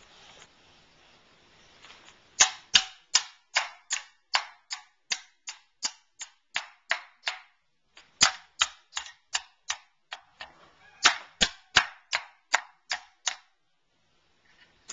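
A toddler pounding the pegs of a toy pound-a-peg bench with a wooden mallet: sharp knocks at about three a second, in three runs with short pauses, stopping shortly before the end.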